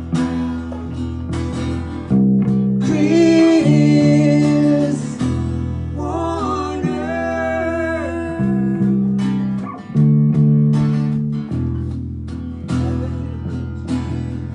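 Two acoustic guitars strumming chords between sung verses of a folk song. A melody line bends in pitch over the chords about three seconds in, and again around six to eight seconds.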